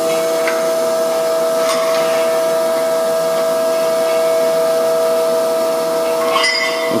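A metal-cutting saw machine running steadily after a cut, giving a constant whine with a hiss. A few light clinks near the start and a short rattle near the end come from the cut-off piece of rectangular metal tube being handled.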